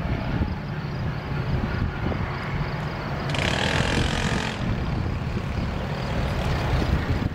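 Low rumble of Metra diesel commuter trains on the tracks: one train pulling away as another approaches on the adjacent track. A brief hiss cuts in about three seconds in and lasts about a second.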